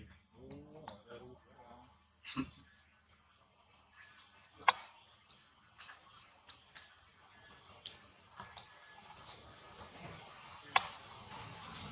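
Steady high-pitched drone of insects, with a few sharp clicks, the loudest about five seconds in and again near the end.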